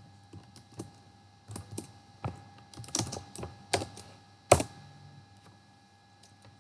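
Computer keyboard keystrokes, typed irregularly while entering a directory path at a command prompt, with one louder key press about four and a half seconds in. The typing stops after that.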